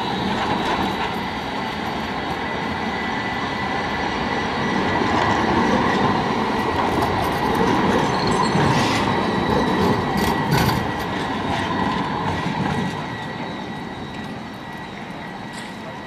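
Electric low-floor tram passing close on street track: wheel-on-rail running noise that swells as it goes by and fades as it moves away, with a thin, steady high whine and a few clacks over the rail joints about nine to ten seconds in.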